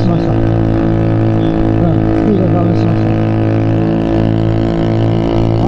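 Honda JAZZ50's small four-stroke single-cylinder engine held at steady revs, a constant drone, as the 50cc bike struggles up a climb.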